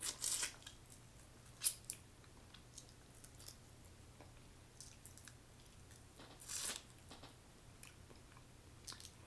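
Close-up eating sounds of snow crab legs: soft crackles and clicks of shell being pulled apart by hand, with wet chewing and mouth noises. There are a few louder crackling bursts, near the start, about a second and a half in, and at about six and a half seconds.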